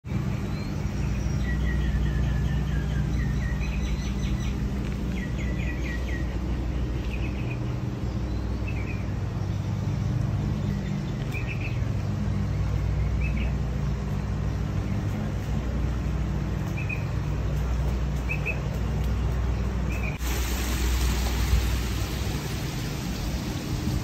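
Birds chirping in short calls repeated every second or so, with a longer falling call near the start, over a steady low hum. About twenty seconds in, a steady hiss starts abruptly and carries on.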